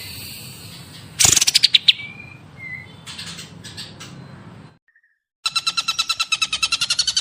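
Songbirds from a birdsong training recording: scattered chirps and whistles, with a loud rapid run of notes about a second in. The sound cuts out briefly past the middle, then a new, evenly pulsed rapid trill of about nine notes a second begins.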